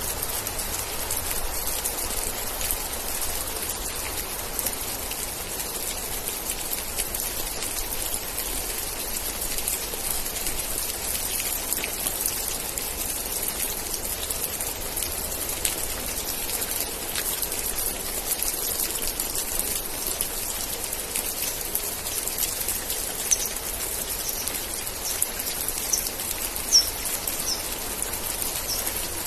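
Steady rain with a dense patter of drops. Near the end, a few short high-pitched chirps sound over it.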